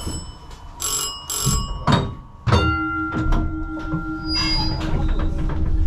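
Vintage museum tram's bell rings twice in quick succession, followed by a knock. About halfway in, a steady electric hum starts over a low rumble as the tram runs.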